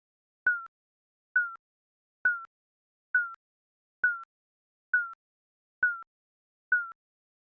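Digital countdown timer beeping: a short electronic beep a little under once a second, eight in all, each dipping slightly in pitch.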